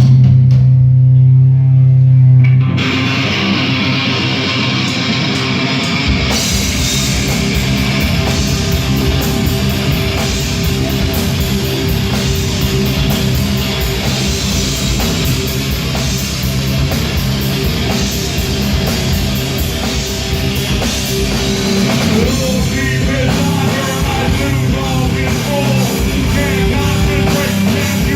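Live rock band playing heavy, distorted rock: a loud sustained low guitar note rings alone for the first few seconds, then drums, bass and guitars come in together and play on steadily.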